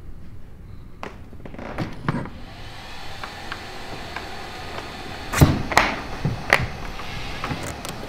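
Hard knocks and clunks as a robot dog and its plastic carrying case are handled on a wooden floor, loudest about five and a half seconds in. A steady hiss starts about two and a half seconds in.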